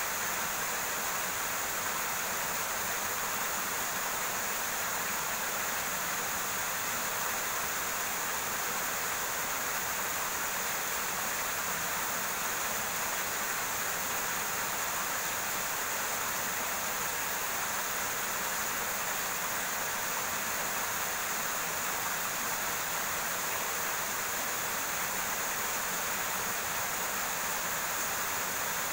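River water flowing steadily over rocks, a constant rushing hiss.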